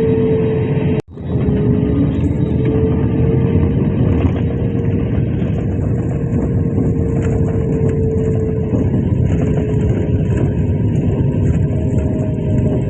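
Jet airliner noise heard from inside the cabin during landing: a loud, steady roar with a steady engine whine, broken by a brief dropout about a second in.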